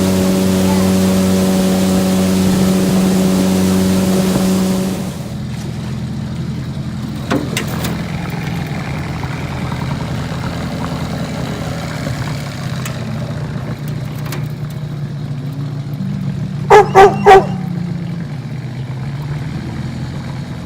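A boat's outboard motor running steadily for about five seconds, then cut off abruptly, leaving a quieter steady hum. Near the end a dog barks three times in quick succession.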